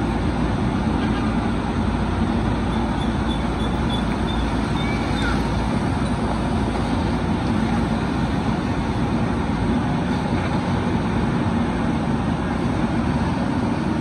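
Diesel engine of a JCB 3DX backhoe loader running steadily while its backhoe arm digs and lifts sludge.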